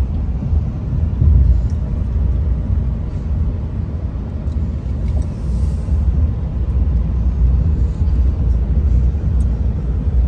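Steady low rumble of road and engine noise inside the cab of a Ram 2500 pickup with the Cummins diesel, cruising while towing a boat of about 7,000 lb.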